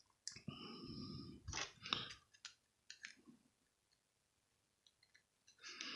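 Faint clicks and taps of small metal spinning-reel parts being handled and fitted with a screwdriver. A brief steady metallic ringing comes in the first couple of seconds, then scattered single clicks.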